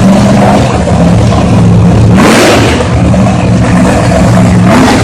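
Loud vehicle engine running hard with a steady drone; about two seconds in and again near the end its pitch rises with a rush of noise as it revs.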